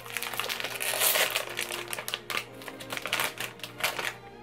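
Plastic potato-chip bag being pulled open and crinkled by hand, a dense crackling that is loudest about a second in and thins out toward the end.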